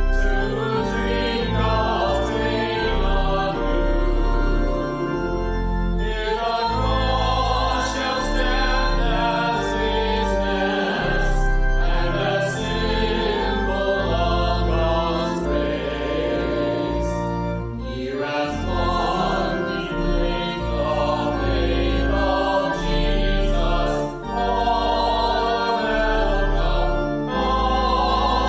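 A choir singing a hymn with instrumental accompaniment, in continuous phrases over sustained bass notes, with brief breaths between phrases.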